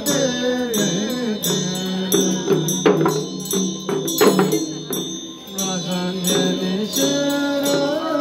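Tibetan Buddhist monks and nuns chanting a melodic liturgy together. Large chöd damaru hand drums rattle in quick, steady strokes, about three a second, and hand bells ring along with them, as in a Chöd practice.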